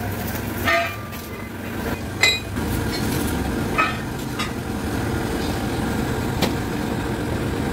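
Steel excavator track chain links clinking and knocking against each other and the pin press as they are handled, four sharp metallic clinks with the loudest and most ringing about two seconds in, over a steady low machine drone.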